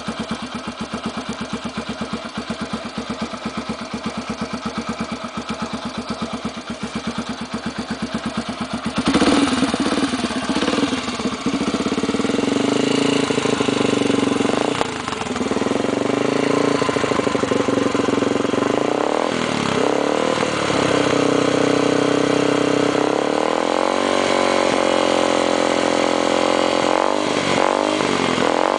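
Yamaha XTZ 125's single-cylinder four-stroke engine through a loud aftermarket ('ronco') exhaust, idling with an even chug for about nine seconds. It is then revved over and over, the pitch rising and falling, with a longer held rev near the end and a few quick blips.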